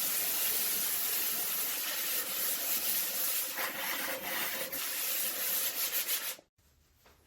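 Foot of a glaze-fired pot being ground wet on a diamond disc, a steady gritty scraping that flattens and smooths the base so it won't rock. The grinding stops abruptly near the end.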